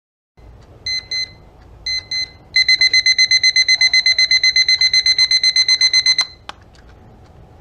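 Mini travel analog alarm clock's electronic beeper going off, stepping up in stages: two double beeps about a second apart, then a louder, rapid run of beeps at about seven a second. The beeping cuts off about six seconds in and is followed by a single click.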